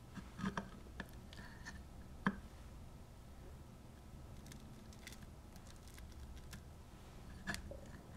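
A small metal spoon clicks and scrapes against a small glass bowl in a few light, sharp clinks, the sharpest about two seconds in. Faint crinkles of plastic wrap come between them as fingers press the food on it.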